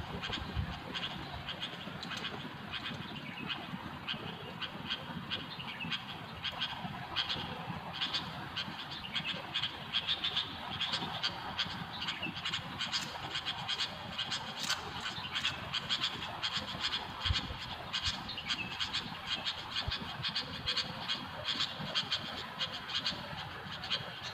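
Sooty-headed bulbuls (kutilang) calling: a steady stream of short chattering notes with no pause, the decoy and wild birds calling back and forth.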